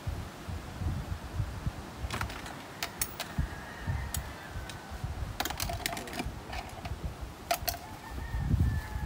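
Sharp plastic clicks and knocks as the seat of a Porta Bote folding boat is handled and fitted into the hull. They come irregularly, with a cluster about halfway through. Under them are dull low thumps, the loudest near the end.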